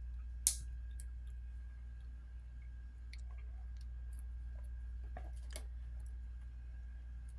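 A few faint, sharp clicks and taps of a small prying tool working at a part inside a smartphone, the clearest about half a second in, over a steady low hum.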